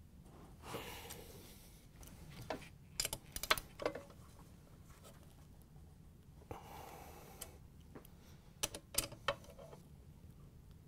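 Hand ratchet with a large Phillips driver bit tightening the base screws of a stand mixer. There are two spells of soft rubbing, each followed by a handful of sharp metallic clicks.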